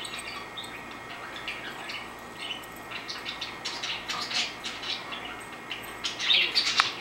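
Small birds chirping: many short, high calls, the loudest cluster near the end.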